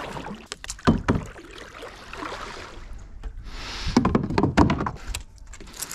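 Kayak paddle knocking and bumping against a plastic sit-on-top kayak hull, a string of irregular knocks and clicks, with a short rush of splashing water a bit past halfway.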